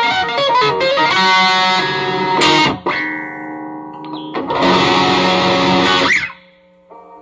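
Electric guitar with Alnico pickups played through a Peavey Classic 50 tube amp: a quick run of single notes, then strummed chords. The chords stop abruptly twice; after the second stop a low amp hum and faint string ringing remain.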